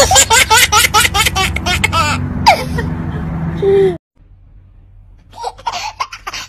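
Baby laughing hard in quick, rapid bursts, about six a second; after a sudden cut about four seconds in, a second baby giggles more softly in short, scattered bursts.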